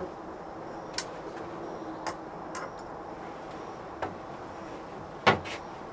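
Freshly poured sand-casting mould ticking and crackling while the flame burns at its pour hole: about five sharp, irregular clicks, the loudest a knock a little over five seconds in, over a low steady hum.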